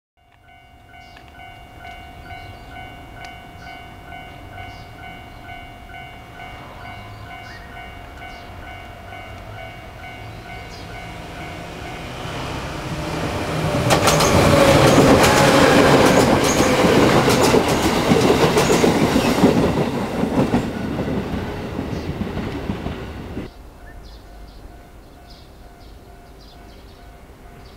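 JR Kyushu 811 series electric multiple unit approaching and passing close by, its wheels clattering over the rail joints. It is loudest for about six seconds in the middle, then fades and drops away abruptly near the end.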